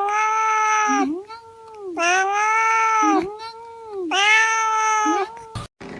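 Domestic cat meowing in three long drawn-out calls about two seconds apart, with softer short meows between them.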